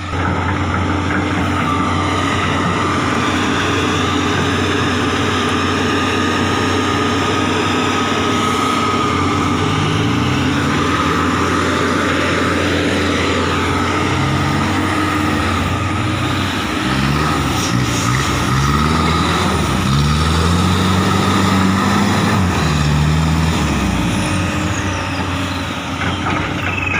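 Heavy diesel engine noise from a hydraulic excavator and a light truck stuck in mud, running steadily with a constant whine; from about a third of the way in, an engine revs up and down again and again under load, with the truck stuck fast.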